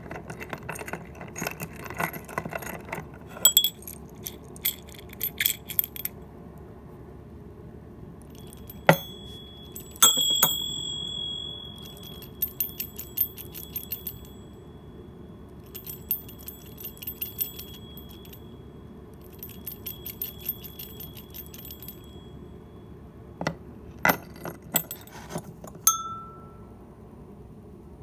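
Brass hand-bell type bear bell rung by swinging it on its chain: quick metallic clapper strikes come in several bursts of about two seconds, each over a steady high ringing tone. Before that come muffled clicks and rattles as the bell is handled and its bear-head top is twisted to work the built-in silencer.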